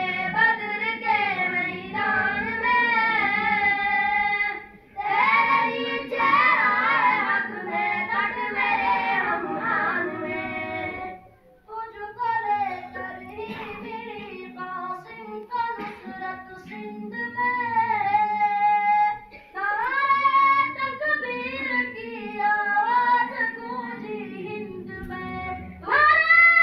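A single high voice chanting melodically over a mosque's loudspeaker, in long wavering phrases broken by short pauses, with no instruments.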